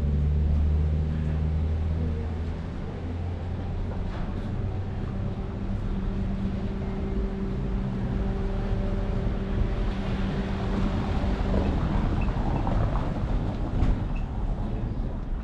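Car engine running slowly close by in a narrow street, a steady low hum, with a broader rush of traffic noise rising about ten seconds in.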